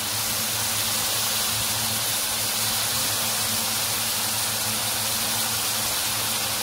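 Chopped red onions sizzling steadily as they fry in oil in a kadai.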